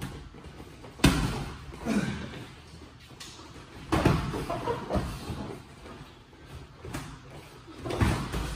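Boxing gloves landing punches in sparring: several heavy thuds at uneven intervals, each with a short echo.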